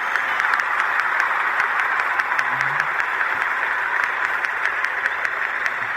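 Applause: many hands clapping, steady and even.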